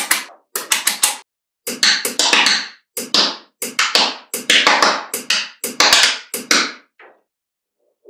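Small neodymium magnet balls clicking and clattering as slabs of them are pressed and snapped together by hand, in quick runs of sharp clicks with short pauses between.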